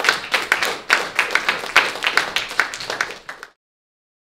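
Audience applauding, with many claps, which cuts off suddenly about three and a half seconds in.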